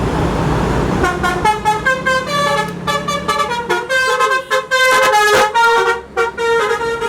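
Tourist bus's telolet horn, a multi-tone musical air horn, playing a rapid tune of short notes that step up and down in pitch. It starts about a second in, over the rumble of traffic.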